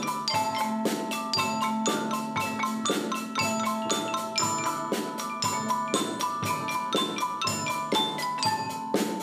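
A school percussion ensemble playing: marimbas and xylophones struck with mallets in ringing pitched notes over a steady drum beat of about two strokes a second.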